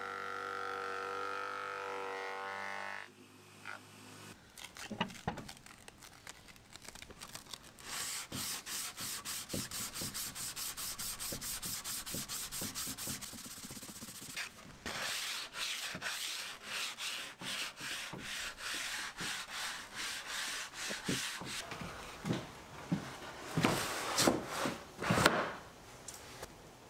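Hand sanding along a laminated curved wooden skirting board: rapid, even back-and-forth rubbing strokes, about four a second, with some louder irregular rubs and knocks near the end. A steady machine hum runs for the first few seconds and then stops.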